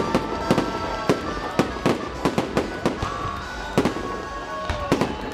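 Fireworks salute: a rapid, irregular series of sharp bangs from bursting shells, around three a second.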